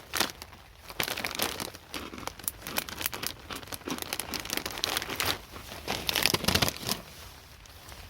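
Crinkling and rustling of packaging being handled, in irregular bursts that die down about seven seconds in.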